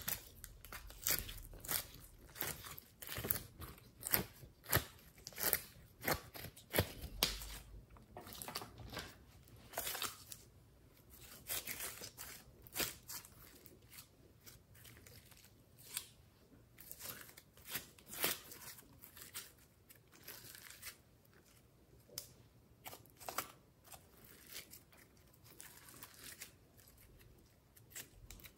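Glossy slime being scooped, stretched, folded and squeezed by hand, making irregular sticky clicks and crackles as it pulls apart and presses together. The clicks come thick and loud through the first half and thin out after that.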